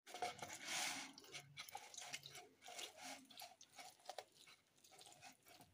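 Orange half being twisted and pressed on a plastic hand juicer: faint, irregular wet squishing and scraping of the fruit against the ridged reamer, most strongly in the first second.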